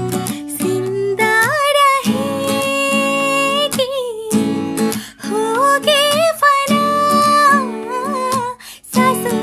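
A woman singing a slow melody with long held, wavering notes over strummed acoustic guitar chords, pausing briefly about halfway and again near the end.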